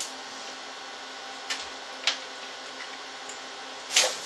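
A few sharp clicks and knocks, the loudest near the end, as an Ethernet cable plug is handled and pushed into the network port on the back of a computer, over a steady hum.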